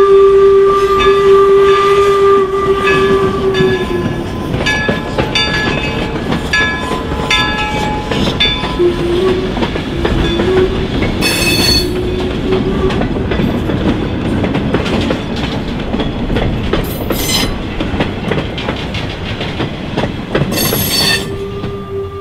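Steam whistle of the York 17 replica 4-4-0 steam locomotive blowing one long steady note for about three and a half seconds. Then the passenger coaches roll past with wheels clicking over the rail joints, with three short hiss-like bursts. The whistle sounds faintly again about nine seconds in, and once more near the end.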